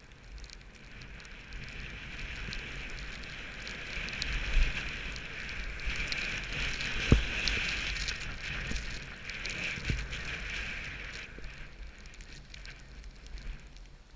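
Skis hissing as they slide over snow, building up and then fading away, with a few knocks along the way, the loudest about seven seconds in.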